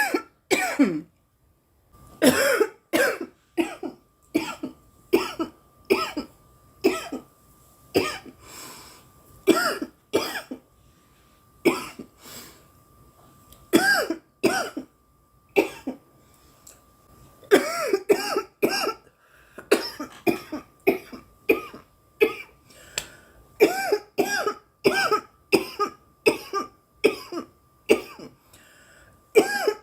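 A woman coughing over and over in long fits of harsh, partly voiced coughs, about one or two a second, after a short pause near the start: coughing from bong smoke.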